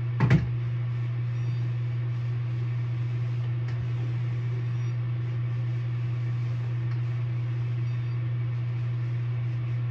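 Bathroom exhaust fan running with a steady low hum, with a brief knock just after the start.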